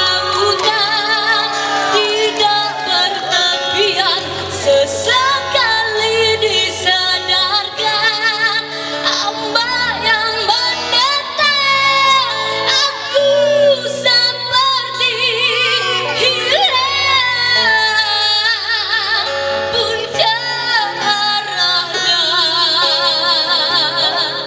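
A young female singer singing with vibrato into a microphone over a live band of electric guitars, bass, acoustic guitar and drum kit, holding a long wavering note near the end.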